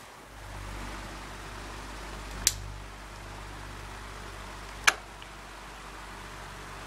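Hampton Bay pedestal fan's motor humming steadily. Two sharp plastic clicks, about two and a half seconds apart, come as a hand handles the back of the motor housing.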